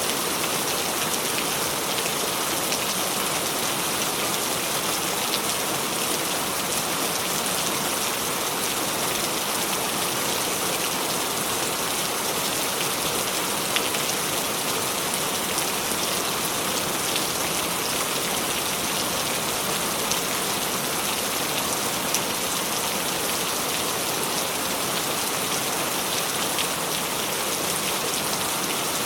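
Steady rain falling, an even hiss with single drops ticking out now and then.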